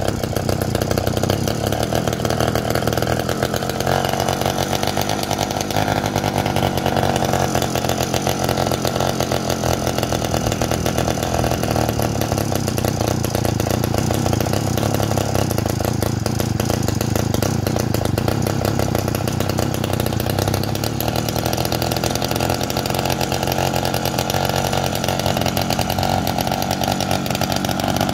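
49cc two-stroke bicycle engine kit idling fast and steadily, with small shifts in engine speed a few seconds in and again later. The idle is set higher than wanted and is about to be turned down at the carburetor's idle screw.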